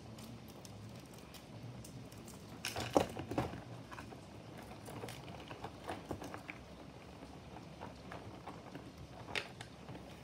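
Small clicks and clinks of a metal necklace being handled, with a louder burst of clatter about three seconds in.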